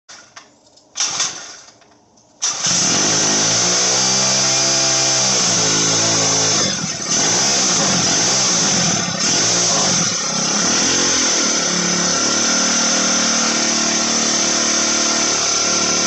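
A motorized bicycle's two-stroke kit engine starts about two and a half seconds in. It is revved up and down several times, then settles to a steadier idle, with a high-pitched whine like a dental drill. It is running with its carburettor jetting corrected.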